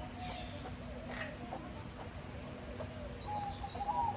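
A steady, high-pitched insect drone, with short warbling bird calls over it.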